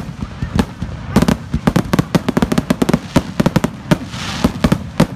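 Fireworks finale barrage: aerial shells bursting in rapid succession, several bangs a second, with a brief hiss about four seconds in.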